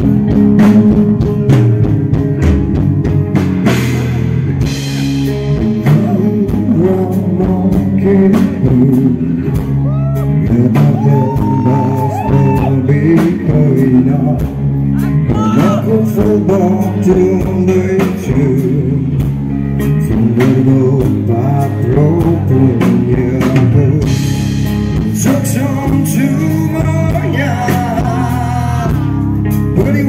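Live rock band playing through a stage PA: electric guitars, bass guitar and drum kit, with a lead vocal singing over them in stretches.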